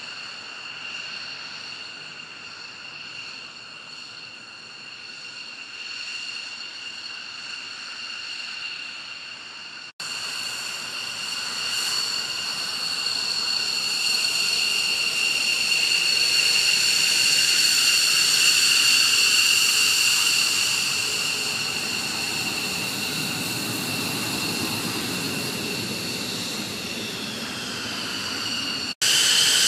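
F-15 fighter jet engines running with a steady high whine. After a cut about ten seconds in, the jet whine and rumble are louder, swelling to a peak midway and then easing, the pitch dipping slightly near the end.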